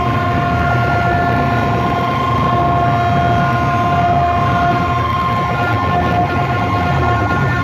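Towering racks of horn loudspeakers at a DJ box competition, blasting a long, steady, horn-like chord of several notes over a low rumble.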